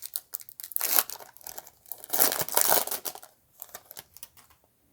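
Plastic wrapper of a baseball card pack being torn open and crinkled, in bursts of rustling that are strongest about a second in and again in the middle, then fade.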